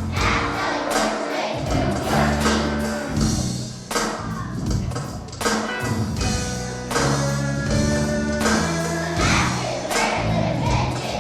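Children's choir singing a song with instrumental accompaniment and a steady beat.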